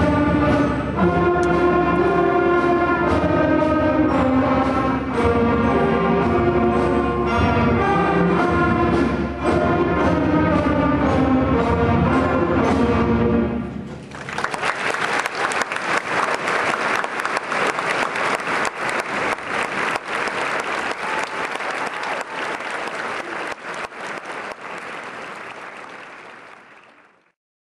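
A sixth-grade concert band of trumpets and other wind instruments playing, with the piece ending about halfway through. Audience applause follows and dies away near the end.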